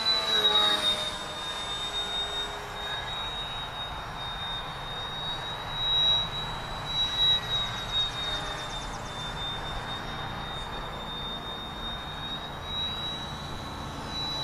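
RC model airplane's motor and propeller whining steadily in flight, a high thin tone that wavers slightly in pitch and swells briefly a couple of times around the middle.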